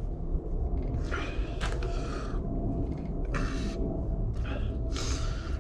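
Crank puller tool being worked onto a bicycle crank arm's threads: several short bursts of metal scraping and rubbing, over a steady low rumble.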